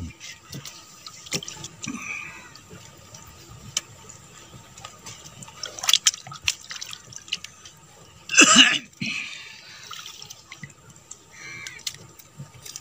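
Water sloshing and dripping around a man standing waist-deep as he works rope around bamboo slats, with scattered light knocks and a sharp click about six seconds in. A brief louder burst comes about eight and a half seconds in.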